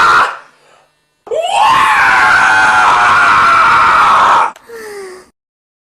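A person screaming: one long, loud, high-pitched scream starts about a second in, rises at its onset and is held for about three seconds. It is followed by a shorter, quieter cry that falls in pitch.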